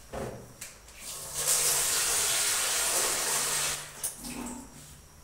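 Water running for about three seconds as water is added to peeled potatoes for boiling, with a short knock near the start and a couple of clicks after the water stops.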